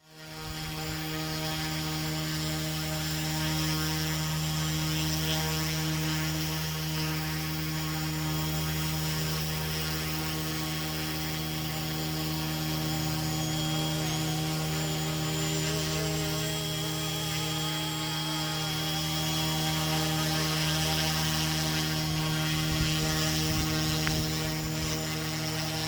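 Yuxiang F07 radio-controlled helicopter hovering: its electric rotor drive gives a steady, even hum that holds one pitch throughout, as it keeps a hands-off optical-flow position hold.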